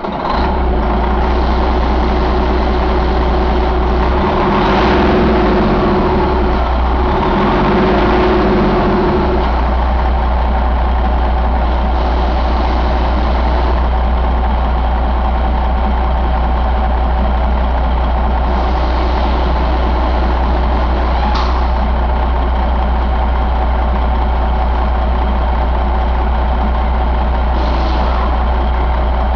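Detroit Diesel Series 60 14.0 L inline-six turbodiesel running, its note shifting unevenly for the first several seconds and then settling into a steady idle. A short hiss sounds twice in the second half.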